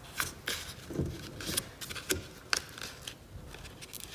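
A sheet of A4 paper rustling and crinkling as it is folded into a paper aeroplane, fingers pressing and sliding along the new crease, with several short, irregular crackles.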